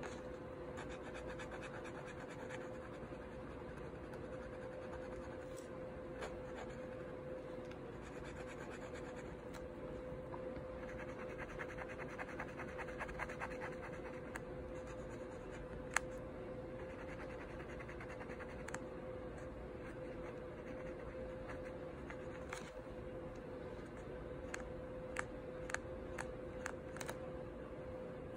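Black marker scratching on paper in quick back-and-forth strokes, colouring in a drawn shape. A few sharp clicks come about halfway through and several more near the end.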